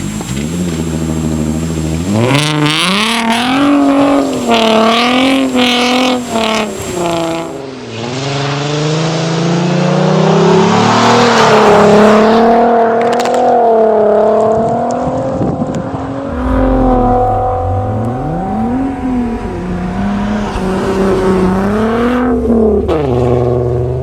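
Volkswagen Golf R32's 3.2-litre VR6 engine revving hard, its pitch climbing and dropping back over and over as the car is driven sideways on snow. A hiss of tyres and thrown snow rises with it, loudest about halfway through.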